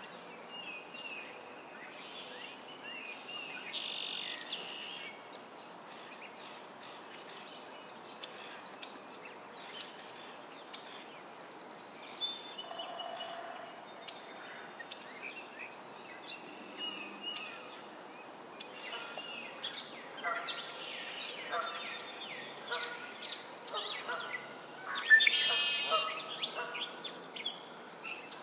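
A chorus of wild birds in a spring swamp, several birds singing and calling in short overlapping phrases and trills. The calling is sparse at first and grows busier from about halfway, with the loudest song a few seconds before the end.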